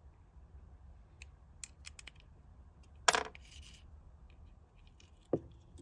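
Faint clicks and taps of small hard parts being handled on an RC car's disc brake assembly and hex driver. There is a sharper click about three seconds in and another near the end.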